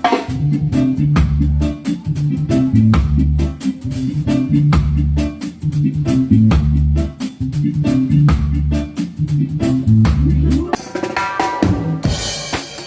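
Reggae one-drop drumming on a drum kit, a rimshot snare with bass drum and a steady run of hi-hat strokes, over a deep bass line. Near the end a rising sweep comes in, and the music changes abruptly about twelve seconds in.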